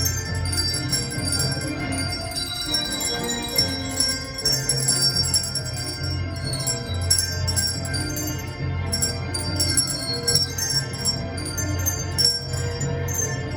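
Handbells played by a children's handbell choir, ringing a Christmas tune in many overlapping, sustained notes, with a low part sounding underneath.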